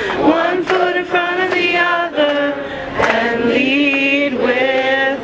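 A crowd singing a slow song together in long held notes, with a woman's voice leading on a microphone.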